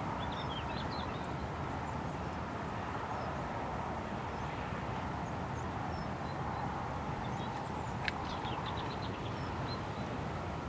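Outdoor ambience: a steady low rumbling background noise with faint scattered bird chirps, one cluster near the start and another about eight seconds in, just after a single sharp click.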